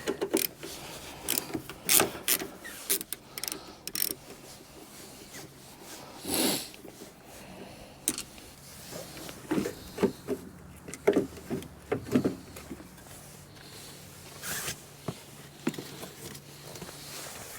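Irregular clicks and knocks of a hand ratchet and metal latch hardware as the Chevy Tahoe's rear door latch is unbolted from its T30 Torx bolts and worked out of the door.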